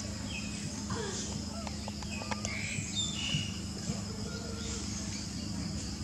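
Outdoor ambience: a steady insect drone with scattered short high chirps and a faint steady low hum.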